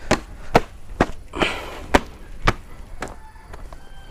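A cloth flicked hard against a motorcycle to dust it off: four sharp snapping cracks, coming in two pairs about half a second apart, with a brief swish of cloth between the pairs.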